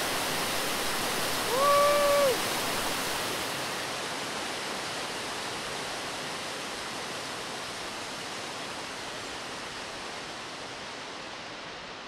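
Steady rush of a waterfall, fading out gradually toward the end. About two seconds in, a single short whistle-like tone rises, holds and falls over it.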